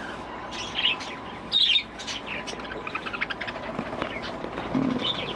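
Budgerigars chattering in an aviary: a busy run of short, high chirps and warbles, briefly louder a little under two seconds in.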